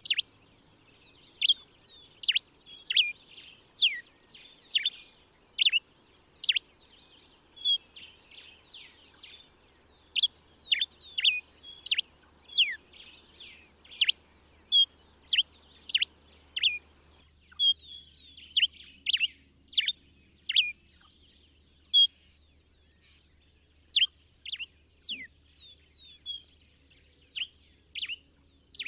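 Common diuca finch (Diuca diuca) singing: a quick, continuing series of sharp down-slurred whistled notes mixed with short chirps, with brief pauses between phrases.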